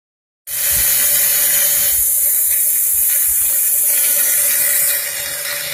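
CNC router spindle running with its bit cutting through a plastic sheet: a loud, steady hiss with one steady tone beneath it. It starts about half a second in and drops slightly in level near the end.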